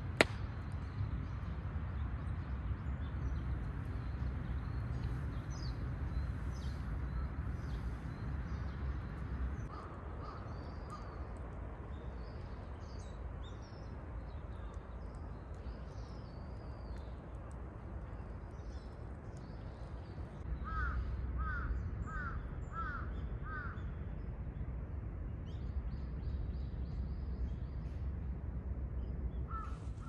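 Morning woodland ambience: a crow caws five times in quick succession about two-thirds of the way through, after a few fainter calls earlier, while small birds chirp faintly throughout over a low steady rumble. A single sharp click sounds right at the start.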